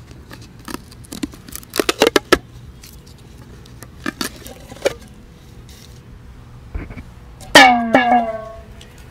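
Fingers tapping the metal lid of a peanut can that is partly covered with tape to damp its vibration, giving groups of short knocks. About three-quarters of the way in come two loud, short pitched cries, each falling in pitch.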